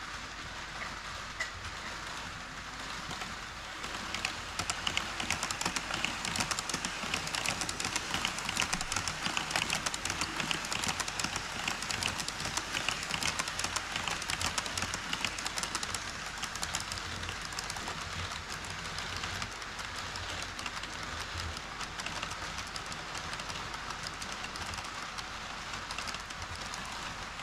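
HO-scale model trains running across a truss bridge: an E5 series Shinkansen model, then a freight train of Taki 43000 tank wagons. Their wheels make a steady rolling rattle on the track with dense rapid clicking, which grows louder about four seconds in and eases off slightly in the second half.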